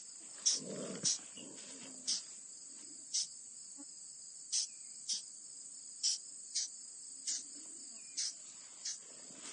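Insects chirping outdoors: a steady high trill with short, sharp high chirps repeating irregularly, about one every half second to a second.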